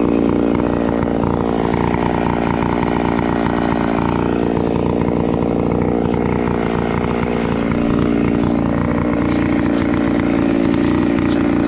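Farmertec G888 two-stroke chainsaw running at high revs, cutting wood. Its pitch dips about four seconds in and again after about eight seconds as the chain loads up in the cut.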